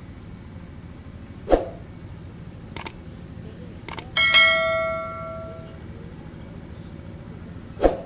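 Subscribe-button overlay sound effects: a short swoosh, two pairs of mouse clicks, then a bright notification-bell ding that rings out for about a second and a half, and another swoosh near the end.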